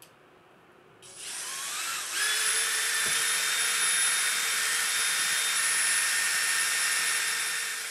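Cordless drill starting about a second in, rising in pitch as it spins up, then running at a steady high whine. It is turning the Boosted board's wheel and drive motor through a strap looped around the wheel, back-driving the motor to generate power into a dead battery.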